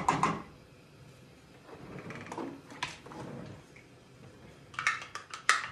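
Kitchen handling sounds by a stove: sharp clicks and knocks of utensils and containers being moved, a soft scraping noise in the middle, and a quick run of clicks near the end.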